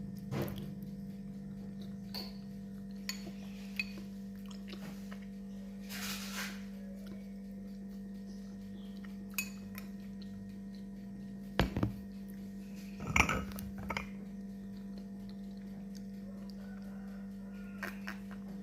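Dishes and cutlery clinking and knocking now and then, loudest twice near the end, over a steady low electrical hum.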